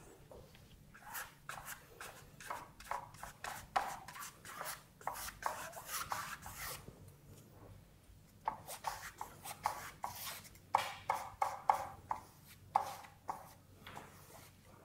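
Wide flat paintbrush brushing paint onto stretched canvas in quick, short repeated strokes. The strokes come in two runs, with a short pause a little past halfway.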